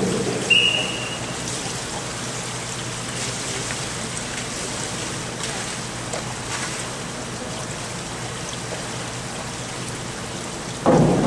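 Steady rushing and trickling water of an indoor diving pool, heard in a large hall, with a brief high tone about half a second in.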